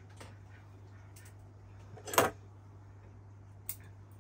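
Small clicks of bonsai tools and wire being handled, with one sharp, loud clack about two seconds in and a lighter click near the end, over a steady low hum.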